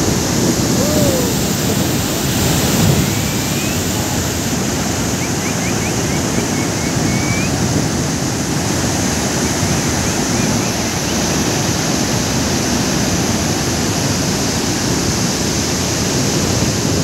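Water rushing through the open spillway gates of a dam and churning in the river below: a loud, steady rush with no letup.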